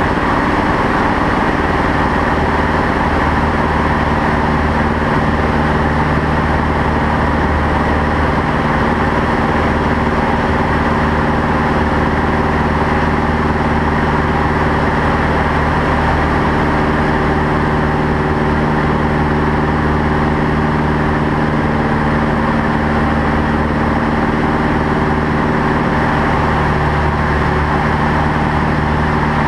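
Single-engine light aircraft's engine and propeller running steadily, heard from inside the cockpit, under a dense hiss of rushing air. The engine note shifts slightly about halfway through and again near the end.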